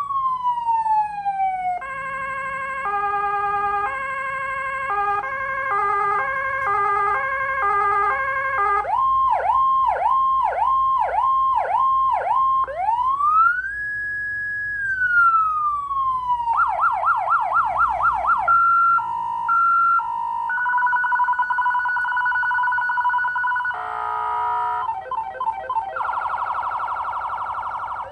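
Electronic emergency-vehicle siren cycling through its tone patterns. It starts with a falling wail, then stepped multi-note sequences, quick repeated whoops at about two a second, a slow rise and fall, a fast yelp, a hi-lo two-tone, and rapid warbles near the end.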